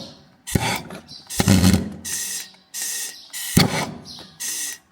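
Propane torch hissing in repeated bursts about a second apart, several starting with a sharp pop, as the gas is run into the pony motor's flooded cylinders to dry them out.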